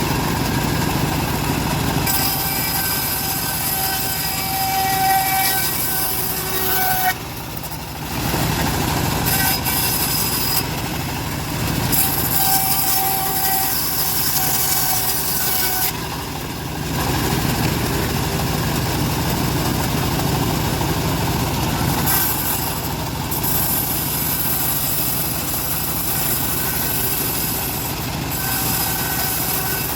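Bandsaw cutting wood into thin slices: the blade's hiss and whine come in passes of about four to six seconds, each dropping away briefly before the next, over the steady drone of the machine running.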